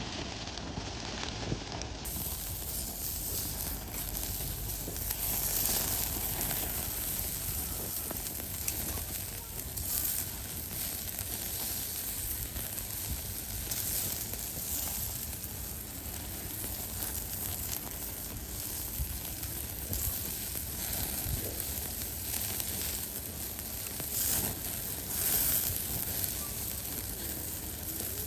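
Food sizzling on a barbecue grill: a steady crackling hiss.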